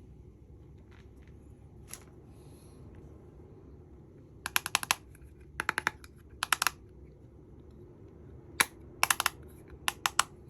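Hard plastic makeup-kit pieces being handled, clicking and tapping in quick clusters of several sharp clicks, about six clusters in the second half.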